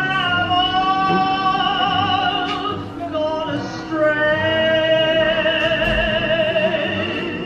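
Music: a high voice singing two long held notes with vibrato, over a steady accompaniment.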